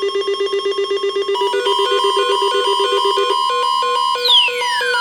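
Electronic emergency-alert tones: a low beep pulsing about ten times a second, joined after a second and a half by higher beeps in a stepped pattern. The low beep stops near the end, and a falling electronic sweep begins.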